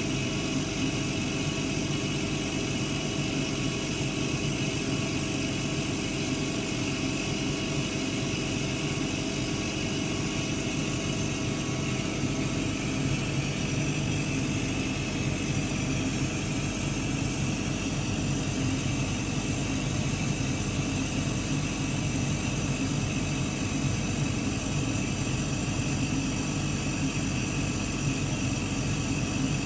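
Laser cutter etching fabric with its fume extractor running: a steady hum of fans and motors.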